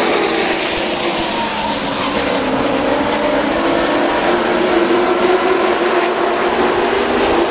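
Several stock-car V8 engines racing past at once, a loud steady drone whose pitch slides down in the first second, then climbs again as the cars come off the turn.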